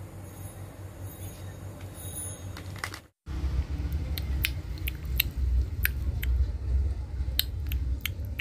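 Faint room hum, then after a short dropout a lioness lapping water: sharp wet clicks a few times a second over a loud low rumble.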